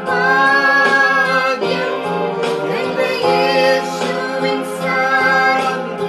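Music: a song with sustained sung notes over instrumental accompaniment.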